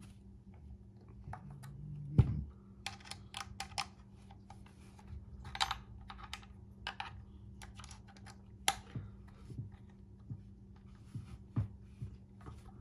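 Irregular clicks and knocks of hard plastic holster parts and mounting plate being handled and fitted together as the mounting screws are snugged down, with one louder knock about two seconds in.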